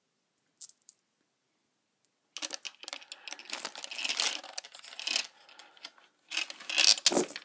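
Pearl-bead necklace rattling and clicking as a cat bats at it: two short clicks about half a second in, then a long spell of dense clattering from about two seconds, and a louder burst near the end.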